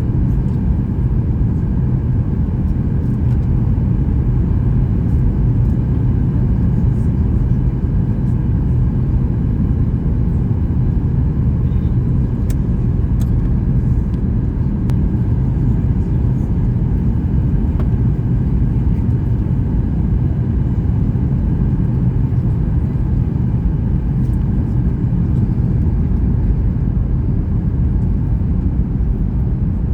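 Steady low rumble of cabin noise inside a Boeing 737 MAX 8 airliner: engine and airflow noise heard from a seat in the passenger cabin.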